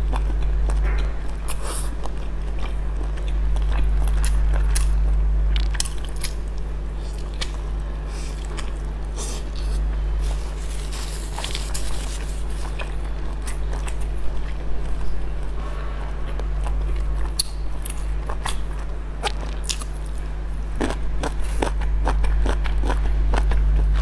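Close-up eating sounds: a person biting and chewing large soft steamed buns dipped in chili sauce, with frequent wet smacking clicks of the mouth, over a steady low hum.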